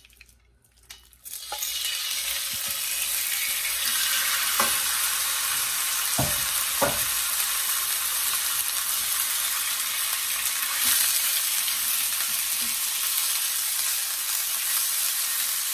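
Marinated chicken breast pieces sizzling in hot oil in a stainless-steel skillet. The sizzle starts about a second in as the chicken goes into the pan and then holds steady while it is stirred, with a few knocks near the middle.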